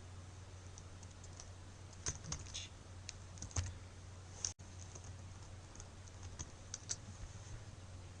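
Computer keyboard typing: irregular, scattered keystrokes over a steady low hum.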